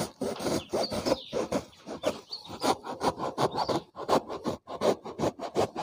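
A knife sawing back and forth through a block of foam, a quick run of rasping strokes, several a second.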